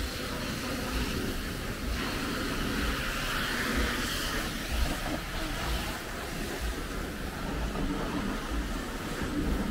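Steady hiss of pressure-washer hoses spraying water onto cars, swelling for a few seconds partway through, over low, irregular thumps.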